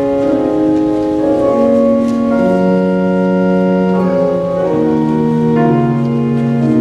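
Organ playing slow, sustained chords, the lowest note stepping down several times.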